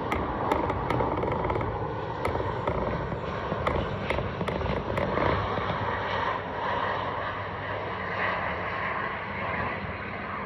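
An Airbus A350 airliner passing low overhead on approach, its Rolls-Royce Trent XWB jet engines making a steady rumbling jet noise that eases slightly near the end. Faint sharp clicks sound in the first few seconds.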